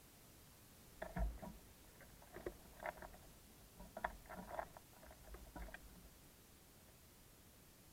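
Irregular light taps and scuffles, clustered between about one and six seconds in, from small birds moving and pecking on a bird feeder.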